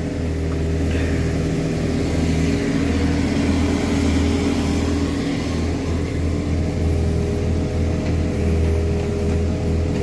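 Diesel excavator engine running steadily at a constant speed.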